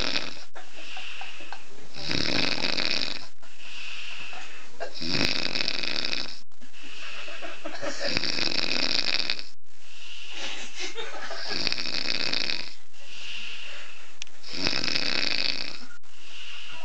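A person snoring heavily: five loud snores about three seconds apart, with a softer breath between each.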